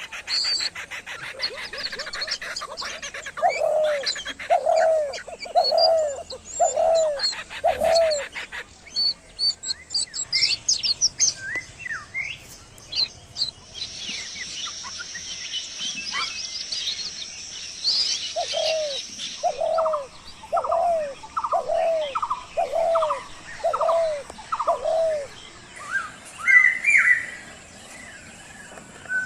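Morning chorus of several birds. One bird repeats a low, arched hooting call about once a second in two runs, five notes near the start and eight in the second half, while small birds chirp and trill high above, thickening into busy chatter in the middle.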